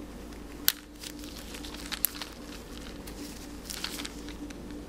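Small metal clicks and scrapes of a jeweller's flat screwdriver working a G-Shock band's spring-bar pin into the watch case's lug slot, with a sharp click about a second in, a few lighter clicks near the middle and a run of scratchy ticks near the end. Faint crinkling handling noise runs along with it.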